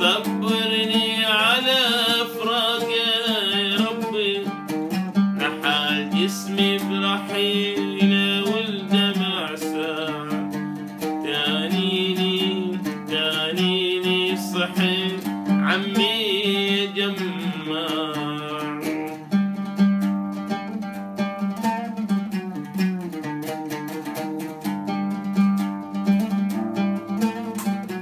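A man singing a song with wavering held notes while accompanying himself on an oud, a fretless plucked lute. The voice stops about two-thirds of the way through, and the oud plays on alone.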